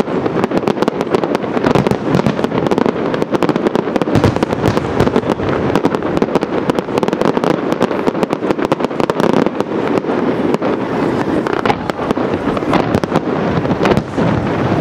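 Aerial fireworks display: a dense, unbroken barrage of shell bursts, many rapid overlapping bangs with no pause.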